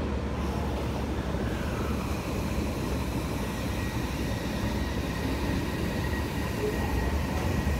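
Odakyu electric commuter train running alongside the platform: steady rumbling running noise, with a falling whine about two seconds in and a faint steady high whine after it.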